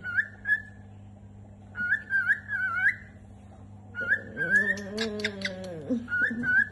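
Cockatiel making short, wavering, whiny whistling calls in three bouts, with a lower, drawn-out arching note and a few clicks about four to six seconds in.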